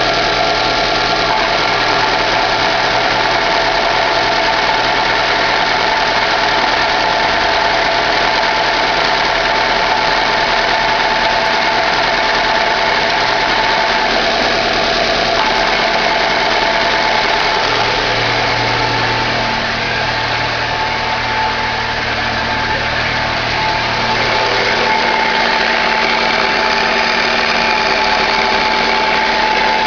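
Chevrolet Classic engine idling, with a steady bearing-like whine from the clutch area that comes with the clutch pedal released and goes away when it is pressed; a new release bearing and clutch have not cured it.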